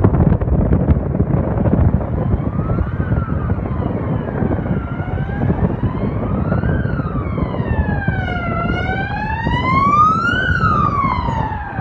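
Emergency vehicle siren wailing, sliding slowly up and down in pitch about every four seconds. It comes in faintly a couple of seconds in and grows louder, over a steady low rumble of wind and traffic.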